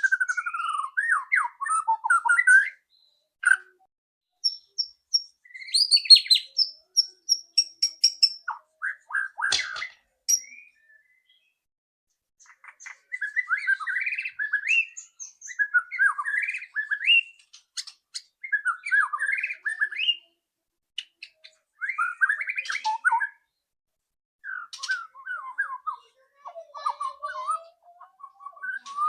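White-rumped shama singing: phrases of quick chattering notes and clear high whistles, broken by short pauses, the loud rattling 'ketrekan' used as a song lure for kept shamas.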